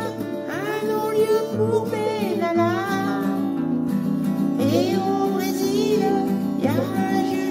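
Singing in French over acoustic guitar accompaniment, a sung phrase near the start and another about halfway through.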